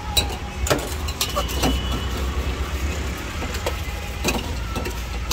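Steel spoon and utensils clinking and scraping against stainless-steel pots and a mixing bowl as bhel puri is made, about six sharp clinks, some with a short metallic ring. A steady low rumble runs underneath.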